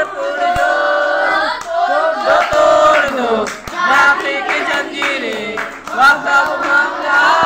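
A group of women singing together in unison, with a few hand claps.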